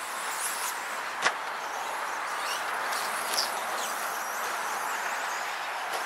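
Electric RC stadium trucks racing round the track: brief rising and falling motor whines as they pass, over a steady hiss. A single sharp clack about a second in.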